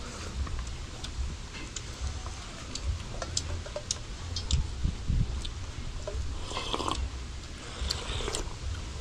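Eating at a table: chewing and small clicks of a spoon against dish and pot, with slurps of hot soup from a spoon about six and a half and eight seconds in. Wind rumbles on the microphone underneath.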